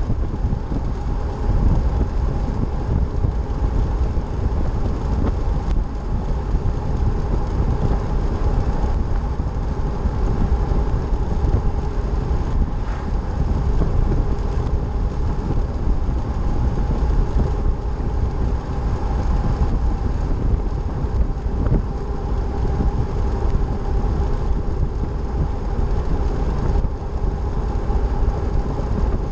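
Steady road noise of a vehicle driving along a paved highway: a continuous low rumble from the tyres and engine, with a faint steady hum above it.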